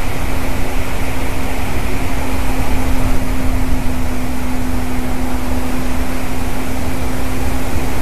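Steady rumbling noise, as of wind on an outdoor camera microphone, with a steady low hum underneath and no bird calls.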